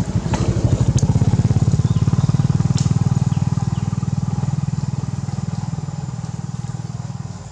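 Engine of a passing motor vehicle: a low, pulsing drone that grows loudest about a second in, then slowly fades away.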